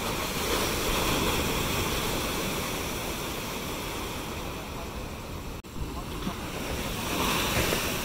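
Heavy surf breaking and washing up the shore in a continuous rushing noise. The sound drops out for an instant a little past halfway and swells louder near the end.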